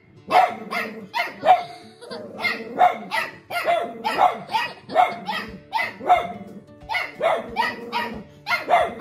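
Dogs barking in rough play, short sharp barks coming about two a second, with music from a TV underneath.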